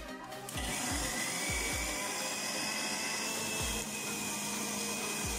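Electric mixer grinder with a steel jar starting up about half a second in, then running steadily with a high whine as it grinds spices, onion, garlic and ginger into a paste. Background music with a low beat is underneath.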